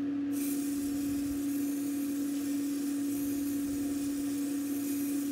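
Aerosol can of black ebonising lacquer spraying in a steady hiss, starting just after the beginning, over a constant low hum.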